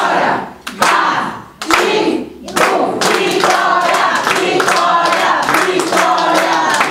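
A group of children and adults singing a birthday song together while clapping their hands along in rhythm.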